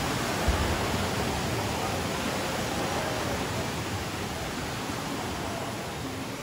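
Steady rushing wash of water in a wave pool while the waves are running, slowly fading, with a brief low thump about half a second in.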